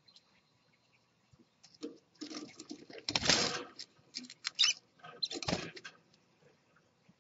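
Scarlet-chested parakeets moving about the cage, with several short bursts of fluttering and scuffling on the paper-lined floor and the seed dish, starting about two seconds in and stopping near the end.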